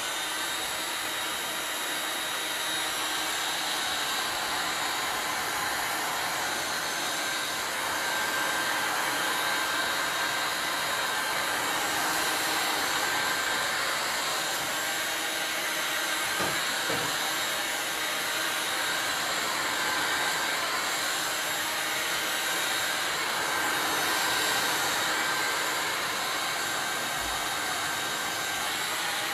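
Hand-held hot air gun blowing steadily, drying the paint on a mixed-media canvas: an even rush of air with a faint high whine.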